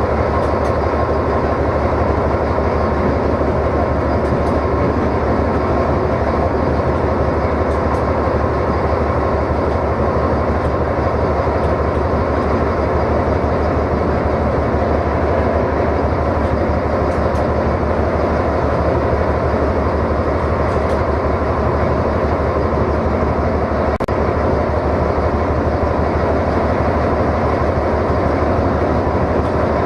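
A class 742 diesel-electric locomotive's six-cylinder diesel engine running steadily, heard from inside the driver's cab as the locomotive travels along the track. The drone stays even throughout, with a faint tick now and then.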